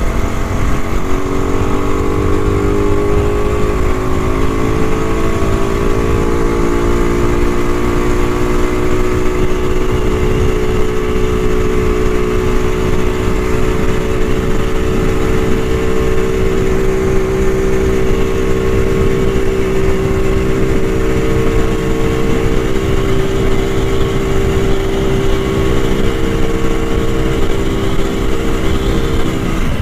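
Rajdoot 175 single-cylinder two-stroke motorcycle engine running under way, climbing in pitch over the first couple of seconds and then holding a steady cruising note, with wind rumble on the microphone.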